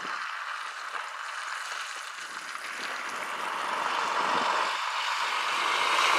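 DAF XF tractor unit with no trailer driving slowly toward the listener; its diesel engine and tyres make a steady hiss that grows louder as it draws near.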